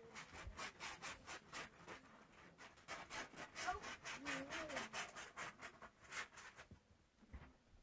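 Gift wrapping paper being handled: quick scratching, rubbing strokes, several a second, stopping near the end.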